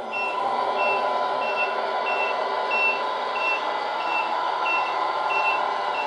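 Electronic sound unit of a 1/14 RC MAN TGX tipper truck playing a reversing beeper, short high beeps about one and a half a second, over a steady simulated diesel engine as the truck backs up.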